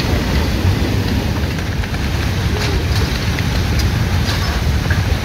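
Mud-laden floodwater of a flash flood rushing past, a loud, steady rush that is strongest in the low end.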